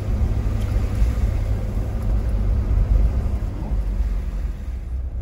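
Mahindra Thar 4x4 on the move: a steady low rumble of engine and road noise.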